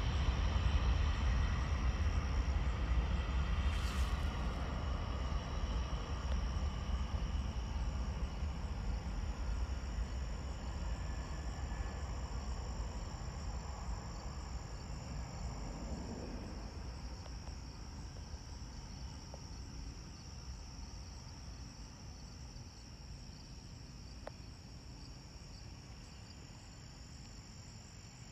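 Jet airliner's engines rumbling as it moves off down the runway, fading steadily as it gets farther away. A steady chorus of insects runs underneath.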